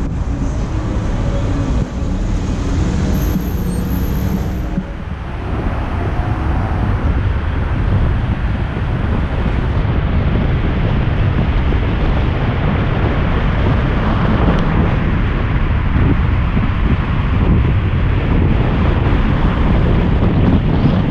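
Car driving through city traffic: a steady rumble of road and engine noise, with some wind on the microphone.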